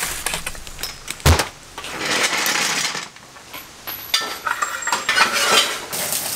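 Light metallic clinks and a sharp knock about a second in, followed by stretches of hissing.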